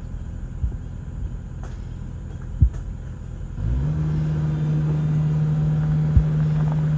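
Heavy machinery engine running at a low rumble, with a sharp metallic knock a little past halfway. About halfway through it gives way to a louder, steady engine drone at a held higher speed, with one more short knock near the end.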